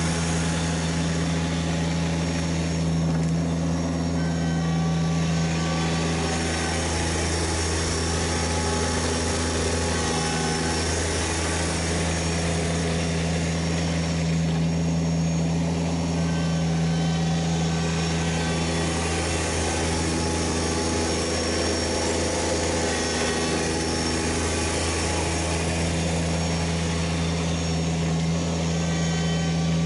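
Kubota BX1870 compact tractor's three-cylinder diesel engine running at a steady speed while it plows snow.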